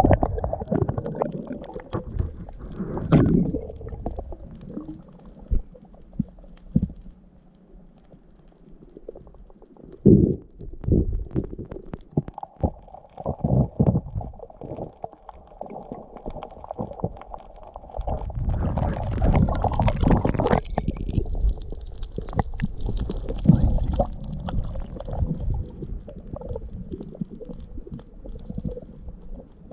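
Muffled underwater water noise picked up by a submerged camera: low rumbling and gurgling, with scattered knocks and bumps throughout. It grows louder and busier from about 18 s to 24 s.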